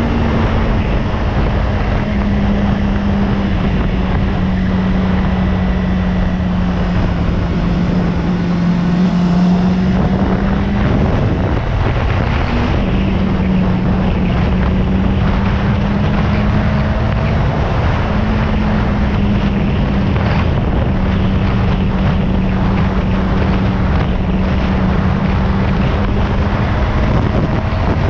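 Motorcycle engine running at a steady cruising speed, with wind rushing over the microphone. The engine note holds nearly constant and drops out briefly twice.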